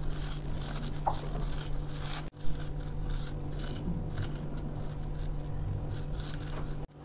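Deep-fried garlic slivers being crushed and rubbed between fingers in a glass bowl: irregular dry crackling and scratching.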